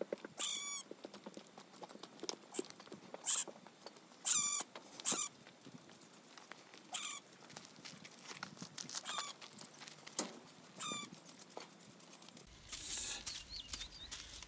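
A straw broom brushed over a horse's coat in short, scratchy strokes, with bursts of high chirping heard several times.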